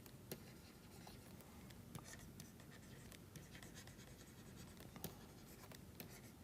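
Faint scratching and light taps of a pen writing, with a few soft clicks.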